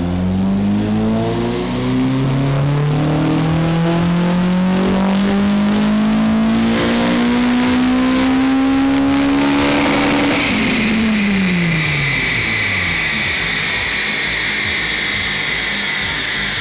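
Honda Civic Type R FN2's 2.0-litre four-cylinder engine, breathing through a new 3-inch exhaust, pulling up through the revs in one gear on a rolling-road dyno for about ten seconds. The throttle then shuts and the revs fall away, leaving a high whine as the rollers spin down.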